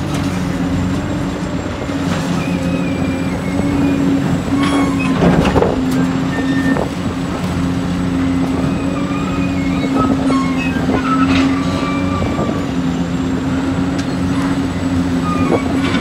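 Heavy diesel construction machinery, an excavator working beside a dump truck, running steadily, with a few knocks about five seconds in, around eleven seconds and near the end.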